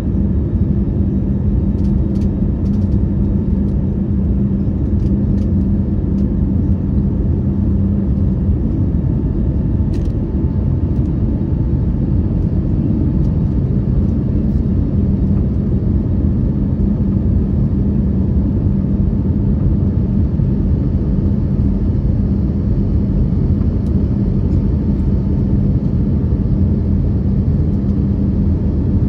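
Steady engine and airflow drone inside the cabin of an Airbus A321neo climbing out after takeoff, heavy in low rumble with a steady low hum. The hum fades for a few seconds about nine seconds in, then returns.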